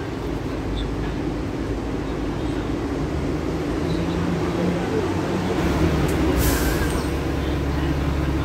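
Bus diesel engine idling with a steady low rumble that grows stronger about three seconds in. A brief hiss of air comes about six seconds in.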